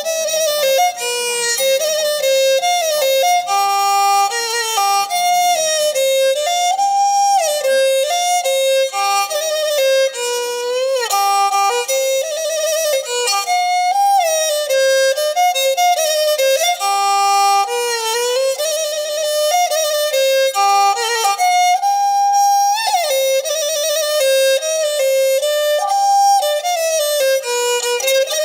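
Background music: a bowed string instrument plays a solo melody with frequent sliding notes.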